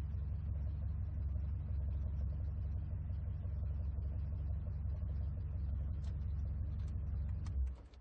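Muscle car engine idling at a steady low rumble, with no rise or fall in engine speed. A few sharp clicks come near the end, and the engine sound then cuts off abruptly.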